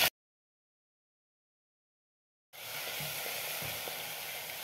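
Dead silence for about two and a half seconds, then whole spices and ginger-garlic paste with chilli powder sizzling in hot oil in a pan, a steady hiss.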